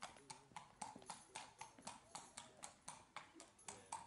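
Thoroughbred racehorse walking on concrete, its hooves clip-clopping in a steady, even rhythm of about four to five hoof strikes a second.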